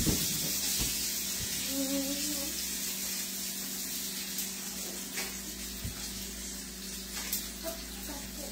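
Sausage sizzling in a frying pan: a steady hiss with occasional small pops.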